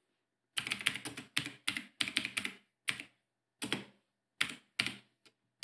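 Computer keyboard being typed on: an uneven run of keystrokes in short clusters with brief pauses, starting about half a second in.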